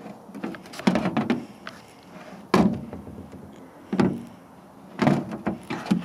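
A series of hard plastic knocks and clunks, about five, spaced a second or so apart. They come from the melted cordless drill and its battery being handled and set down on the metal microwave casing.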